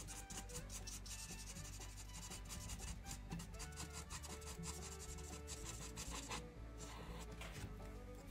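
Marker tip scrubbing on paper in rapid short back-and-forth strokes while colouring in a small area; the strokes thin out in the second half. Faint background music runs underneath.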